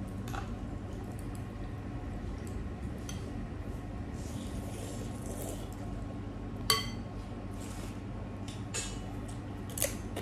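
Noodle soup being eaten from a glass bowl. Noodles are slurped in the middle, and a metal fork clinks sharply against the glass bowl a little after halfway, with lighter clinks near the end. A steady low hum runs underneath.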